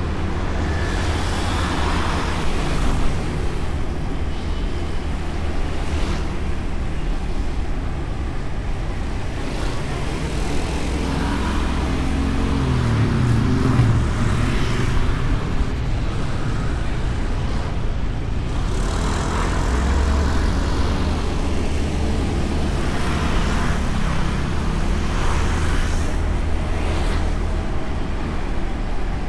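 Honda Beat scooter's single-cylinder four-stroke engine running steadily while riding, with road and wind noise on the bike-mounted camera's microphone. Its pitch rises and falls about halfway through.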